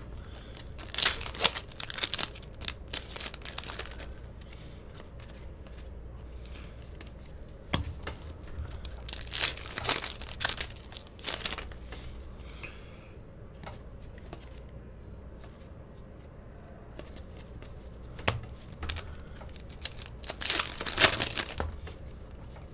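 Foil trading-card pack wrappers being torn open and crinkled by hand, in three bouts of sharp rustling about ten seconds apart, with quieter stretches between.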